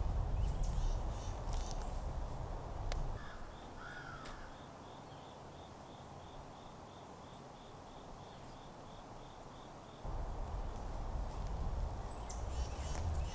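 Woodland bird calls: a single caw about four seconds in, a high chirp repeating about three times a second through the middle, and a few short high whistles. A low rumble, like wind on the microphone, comes at the start and again near the end.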